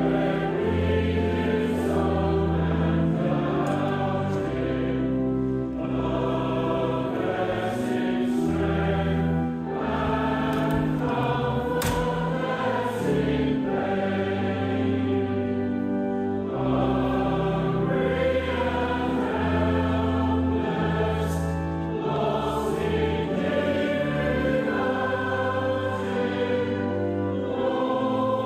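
Choral music: a choir singing in held chords over low sustained accompaniment notes that change every second or two.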